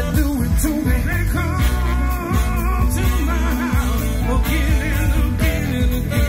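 Live horn band playing a soul song through a PA system, with a voice singing over the band.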